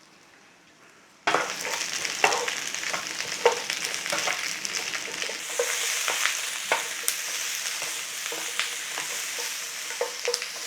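Cubed vegetables going into a hot, lightly oiled pan about a second in, then sizzling steadily as they are stir-fried over a high flame, with frequent clicks and scrapes of the utensil against the pan.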